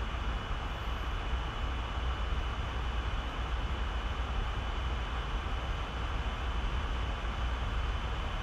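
Steady background noise: a low rumble and even hiss with a faint constant high whine, unchanging throughout.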